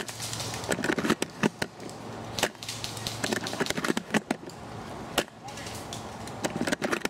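Scattered sharp cracks and snaps, a dozen or so at irregular intervals, over a faint steady low hum.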